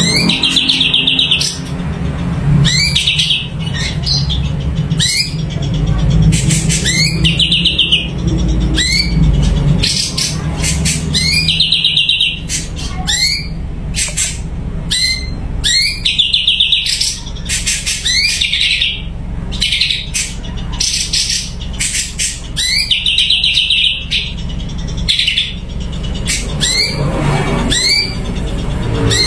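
Cucak cungko songbird singing continuously: short rising whistles, each followed by a buzzy trill, repeated every second or two and interspersed with sharp chips. A steady low rumble runs underneath.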